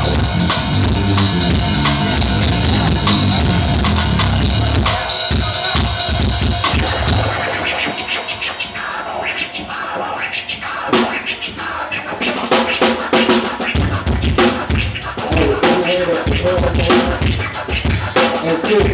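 A live band with a drum kit playing together, then the full band stops about five to seven seconds in, leaving scattered drum hits and loose instrument notes with some voices.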